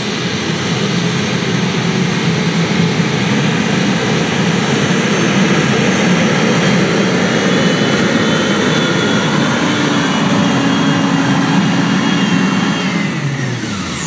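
Light modified pulling tractor's engine at full throttle through a pull, a loud run with a very high whine held at its top pitch. Near the end the whine falls away steeply as the engine comes off power at the end of the pull.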